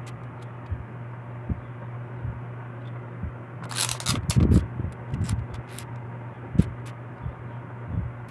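Clear adhesive tape pulled off the roll of a desktop tape dispenser and torn on its cutter, a short rasping burst about four seconds in, among small clicks and knocks of handling the tape and label. A steady low hum runs underneath.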